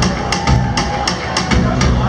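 Live rock band playing: drum kit keeping a steady beat of about four hits a second, with electric guitars and bass, heard from the audience in a large hall.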